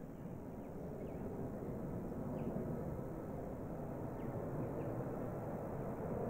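McDonnell Douglas MD-80's twin rear-mounted Pratt & Whitney JT8D turbofans at takeoff thrust during a steep climb-out: a steady low rumbling jet noise that grows gradually louder.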